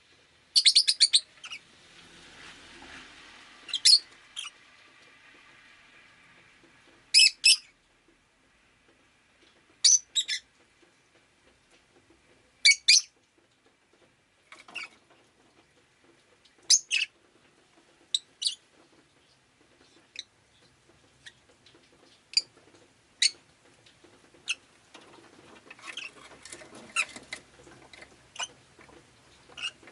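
Rosy-faced lovebird giving loud, sharp, high chirps, single calls or quick pairs about every two to three seconds. In the last few seconds softer scratchy chatter and small clicks fill the gaps between calls.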